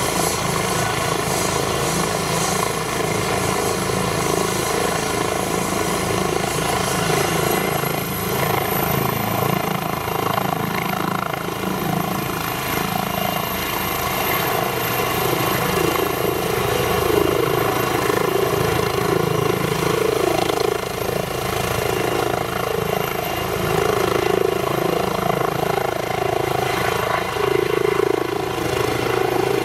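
Airbus H135 rescue helicopter's twin turbines and main rotor running at take-off power as it lifts off the pad, hovers and climbs away. A high, thin turbine whine rises in pitch about eight seconds in, over a steady, continuous rotor and engine sound.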